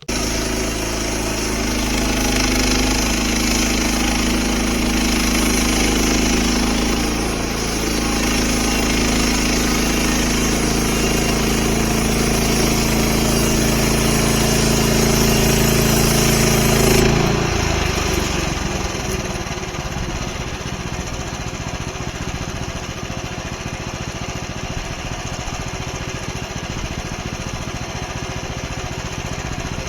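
Gas engine of a portable band sawmill running loud and steady. About 17 seconds in, the sound changes abruptly to a rougher, noisier running.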